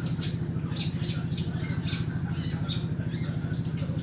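A long-tailed shrike (cendet) calling in quick runs of short, high chirps and squeaks. Underneath runs a steady, low, rapidly pulsing hum, the loudest sound.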